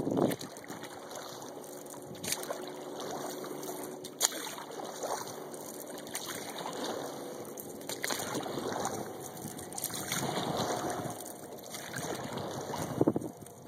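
Kayak on a lake: water splashing and lapping around the hull as the paddle dips in stroke after stroke, with a sharp knock about four seconds in.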